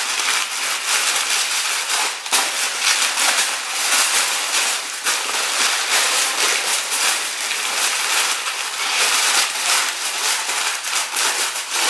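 Aluminium foil and baking paper crinkling and crackling as hands fold them and press them tightly around a meat roll, in a dense, continuous crackle.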